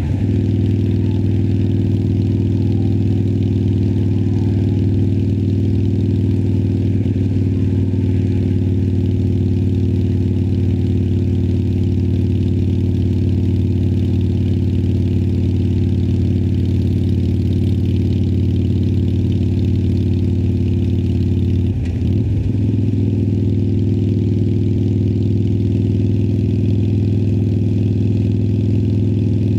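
Harley-Davidson Sportster Iron 1200's air-cooled 1200 cc V-twin running steadily through Vance & Hines Twin Slash slip-on exhausts. There is a brief drop in the engine note about 22 seconds in before it settles back to the same steady pitch.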